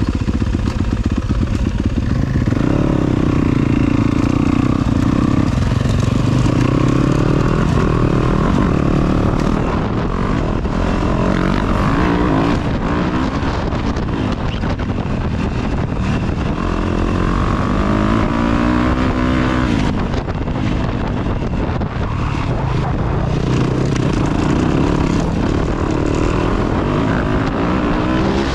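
Yamaha dirt bike engine running under way, its pitch rising and falling several times as the throttle is worked.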